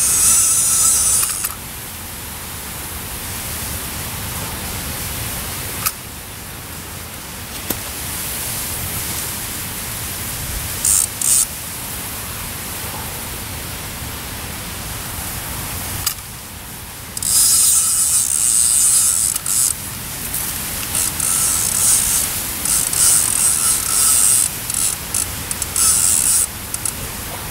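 Fishing reel wound in spells, a loud whirring hiss near the start and again through much of the second half, as a hooked fish is played in. Steady hiss runs throughout.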